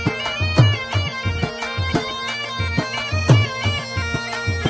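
Background music: a reedy pipe melody over a steady drone, with a regular drum beat.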